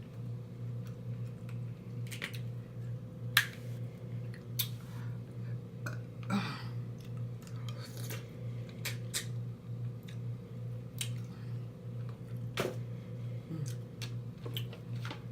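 Close-miked eating of seafood: wet chewing and lip smacking broken by scattered sharp clicks, the loudest about three and a half seconds in.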